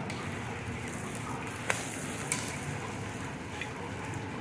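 Bread omelette frying on a flat griddle, a steady sizzle, with two sharp clicks of the spatula against the griddle about halfway through as the omelette is flipped.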